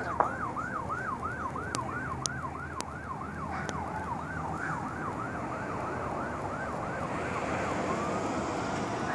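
Emergency vehicle siren in a fast yelp, rising and falling about three times a second, then fading out about three quarters of the way through.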